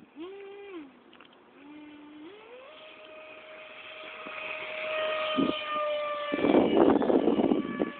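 Electric ducted-fan motor of an RC jet whining, its pitch rising and falling with the throttle, then climbing about two and a half seconds in to a steady high whine that grows louder. Near the end a loud rush of noise briefly swamps it.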